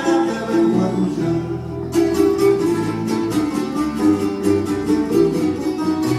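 Music on plucked string instruments in the guitar family. About two seconds in it turns to a quick, even run of picked notes.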